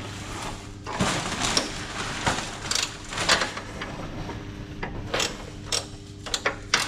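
Metal bolt hardware being scraped and knocked into place, then a hand ratchet starting to click in short strokes in the last couple of seconds as it begins turning the side-step mounting bolt.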